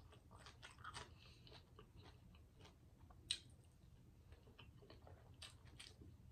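Faint close-miked chewing of sauced steak eaten by hand, with scattered wet mouth clicks and finger-sucking; one sharper click about three seconds in.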